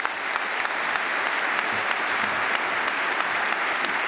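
Audience applauding at the end of a keynote talk: sustained, steady clapping from a large crowd in a hall.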